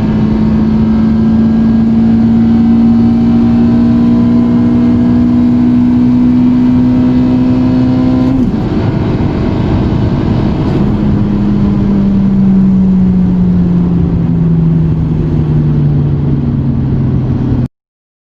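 Acura TSX's K24A2 2.4-litre four-cylinder engine pulling hard, its note climbing slowly. About eight and a half seconds in the note breaks and drops, as at a gear change. After that the engine note falls steadily as the car slows, and the sound cuts off abruptly near the end.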